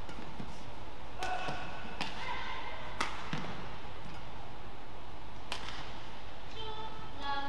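Badminton rally: sharp racket strikes on the shuttlecock, four of them spaced about a second apart, with short high squeaks of court shoes on the floor, over a steady hall hum.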